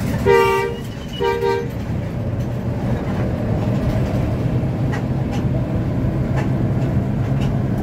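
A vehicle horn sounds two short blasts about a second apart, each a two-note chord, over the steady drone of a moving bus's engine and road noise.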